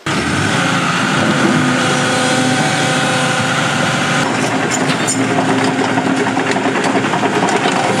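Hydraulic excavator's diesel engine and hydraulics running steadily, with several whining tones over the engine; one higher whine drops out about halfway through.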